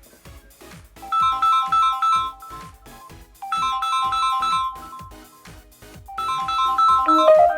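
A mobile phone's electronic ringtone: a short phrase of quick, high beeping notes repeats three times, about two and a half seconds apart, over a steady beat. Near the end a different melody takes over.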